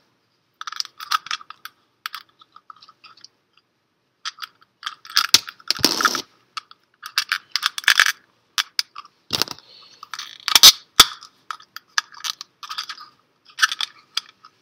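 Hard plastic LEGO parts clicking and rattling in the hands as a yellow handle and round red pieces are fitted onto a clear plastic cube. Irregular clusters of small clicks, with a few sharper snaps standing out partway through.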